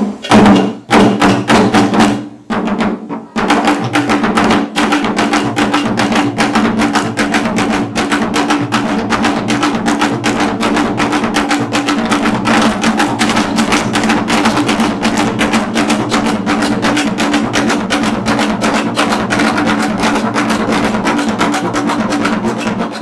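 Music driven by fast, dense drumming over a steady low note, with a short break about two to three seconds in.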